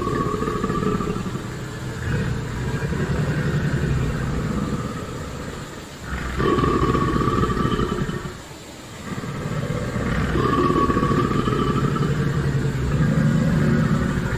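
Deep, drawn-out animal growling in three long stretches, with short breaks about six and nine seconds in: a growl sound effect for an animated crocodile.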